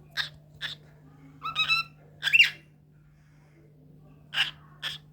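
Pet cockatiel giving six short chirps and squawks, a pair near the start, a louder pair in the middle, the loudest about two and a half seconds in, and another pair near the end. A steady low hum sits underneath.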